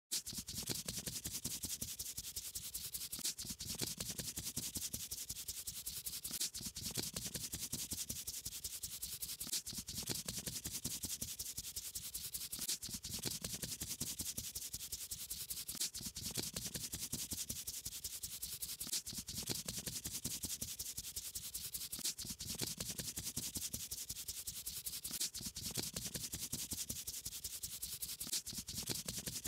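Paintbrush rubbing over paper: a steady, scratchy brushing made of many small strokes, its pattern repeating about every three seconds.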